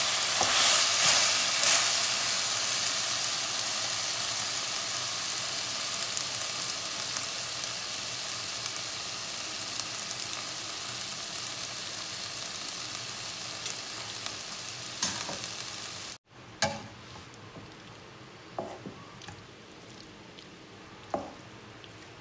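Beef slices and onion rings sizzling as they fry in a pan, the sizzle easing gradually and then cutting off abruptly about three quarters of the way through. After that, a faint hiss with a few knocks of a plastic spatula against the pan.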